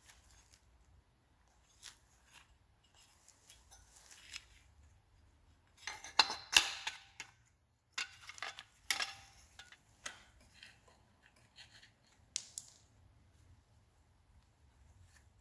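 Metal clinks, scrapes and clatter of a Honda Dio scooter's loose transmission parts (clutch, clutch bell and variator pieces) being handled and set down by gloved hands, loudest about six to seven seconds in and again around nine seconds.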